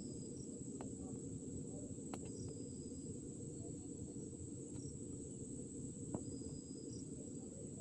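Faint room tone: a steady low hum with a thin high whine, and a few faint clicks as small tools are handled on the repair bench, the clearest about six seconds in.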